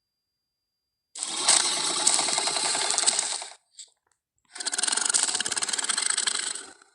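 Carnotaurus creature sound effect: two rasping, rapidly pulsing growls, each about two and a half seconds long, separated by a short silence.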